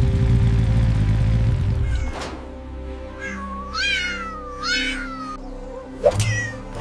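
Cat meowing twice, two drawn-out calls each rising then falling in pitch, over background music. The music is loud and bass-heavy at first, then quieter.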